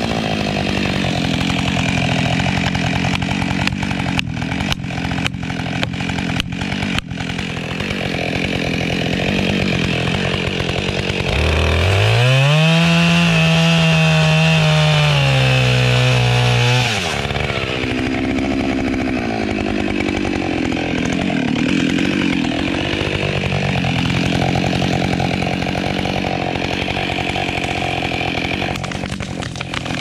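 Chainsaw running at high revs through wood. Between about four and seven seconds in there is a run of sharp ticks. About twelve seconds in, a saw close by revs up sharply from idle, holds at full throttle for about five seconds, then cuts back.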